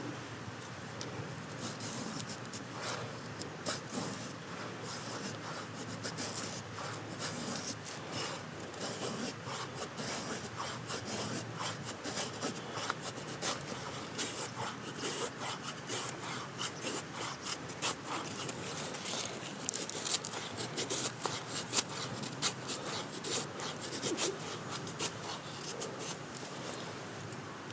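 Knife blade shaving wood in irregular scraping strokes, as when carving a feather stick for fire-lighting, running on for most of the time.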